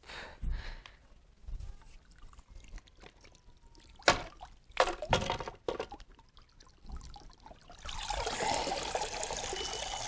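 Water pouring and splashing out of a cordless robotic pool cleaner as it is lifted from the pool, a steady rush that starts about eight seconds in. Before it come a few scattered splashes and knocks.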